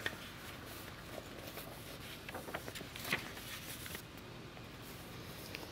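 Quiet room tone with a few faint rustles and clicks from sheets of paper being handled, the clearest about three seconds in.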